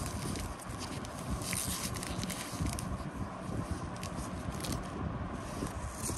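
A Match Attax trading-card packet being torn open and its cards slid out: crinkling, crackling wrapper and cards scraping against each other, with a few brighter rips in the first few seconds.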